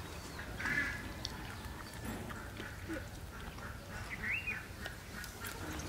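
Birds calling: a short call just under a second in and a short rising-and-falling call about four seconds in, over a steady low hum.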